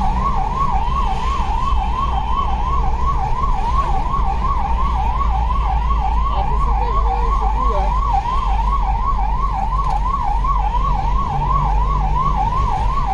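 Emergency vehicle siren in a fast, steady warble, rising and falling about three times a second, heard from inside the moving vehicle over the low rumble of engine and road.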